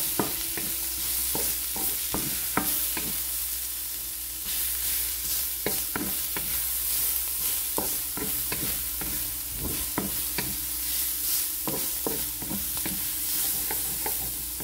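Chopped garlic and sliced onions sizzling in oil in a stainless steel pan, sautéing toward golden brown. A wooden spatula stirs them, scraping and tapping against the pan in frequent irregular clicks over a steady hiss.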